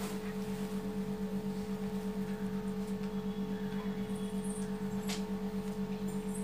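Glass-top induction cooktop on low heat humming steadily, with a fast, even pulse, over faint sizzling of gulab jamun balls deep-frying in oil. A faint tap about five seconds in.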